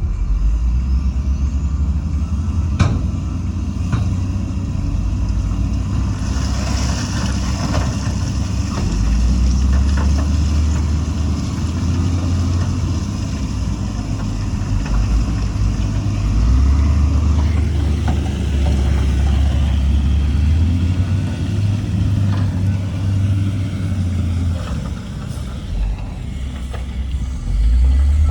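Heavy diesel earthmoving machinery at work: a deep engine drone that swells and eases as the load changes, with a sharp knock about three seconds in and a stretch of high hiss in the middle.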